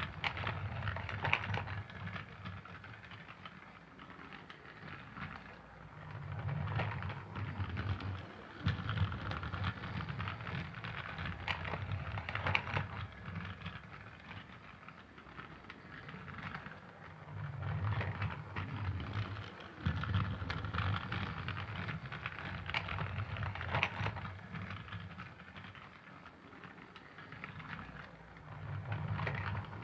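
Thomas toy train running around a track: a steady clicking rattle of wheels over a motor rumble that swells and fades every few seconds, as the train comes close and moves away again.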